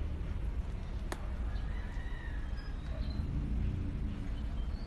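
Outdoor ambience with a steady low rumble on the phone's microphone and faint, short bird chirps, plus a single sharp click about a second in.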